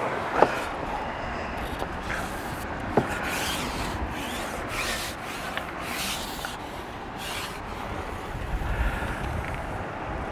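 Carbon fishing pole rubbing and sliding as it is shipped out, a series of short scraping swishes in the middle with a couple of light clicks near the start.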